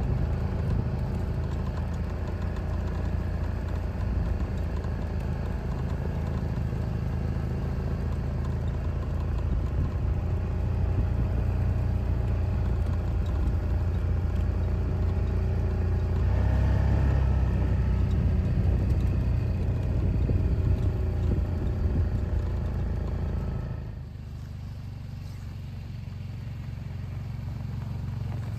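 An engine running steadily with a low hum, shifting in pitch briefly around the middle and dropping quieter suddenly about three-quarters of the way through.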